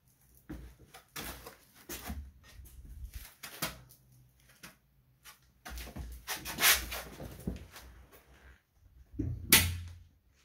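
Black steel-framed glass loft door being swung open and shut, with a series of clicks and knocks from its frame and hinges and a loud knock with a low thud near the end as it closes against the frame.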